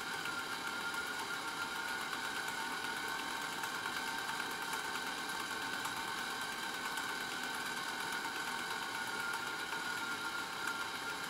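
Small AC servo motor and gear train inside a VC10 aircraft altimeter running steadily with a thin whine, driving the pointer and drum counters as the instrument follows a hand-turned synchro input.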